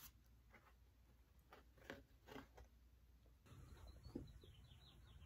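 Near silence: a few faint ticks and rustles of a vinyl record and its inner paper sleeve being handled, then a run of faint, short, high falling chirps near the end.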